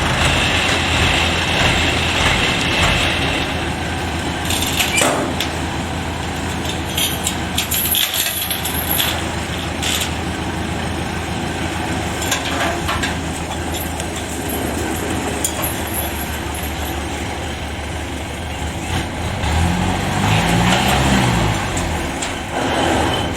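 Kubota DC105X combine harvester's diesel engine running steadily in a rice field, with scattered knocks and rattles from the machine. Near the end the engine note rises and then falls back once.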